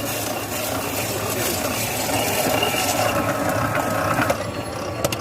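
Sweet popcorn machine at work: a dense, steady rattling and crackling of corn being stirred and popped, over a low steady hum.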